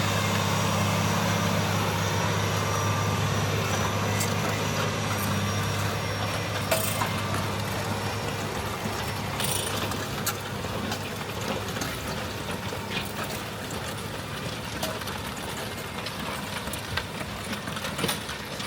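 John Deere 9360R tractor's diesel engine running steadily while pulling a moldboard plow, slowly fading as it draws away. A few sharp clicks sound over it.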